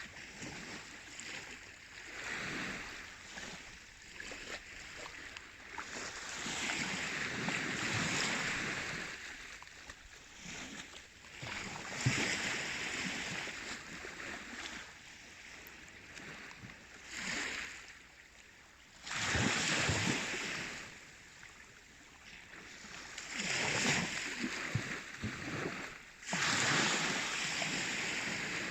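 Baltic Sea waves rushing and washing, a steady hiss that swells into a louder surge every few seconds and ebbs between them.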